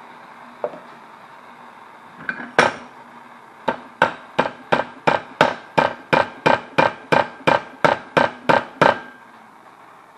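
Hammer blows on a torch-heated metal part held in a bench vise. A single blow comes early, two more come about two and a half seconds in, then a steady run of about sixteen ringing metal-on-metal blows at roughly three a second lasts about five seconds. A handheld propane torch hisses steadily underneath.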